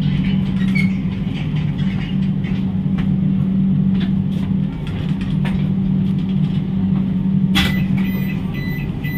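Steady low hum and rumble inside the door vestibule of a stationary Tejas Rajdhani passenger coach. About seven and a half seconds in there is a sharp click, followed by a rapid high beeping.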